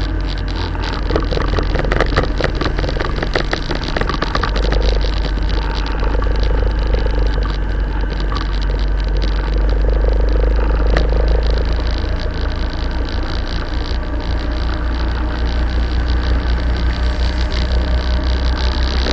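Motorcycle engine running under way at low speed, heard through a camera strapped to the bike, with wind noise and a steady low rumble. About two-thirds of the way in the rumble turns into an even, regular pulsing.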